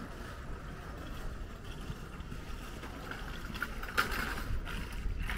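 Outdoor ambience on a walk: a steady low rumble with a faint hiss above it, and a short knock about four seconds in.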